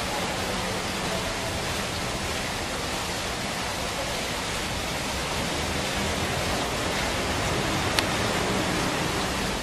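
Steady, even hiss with no pitched sound in it, and a single sharp click about eight seconds in.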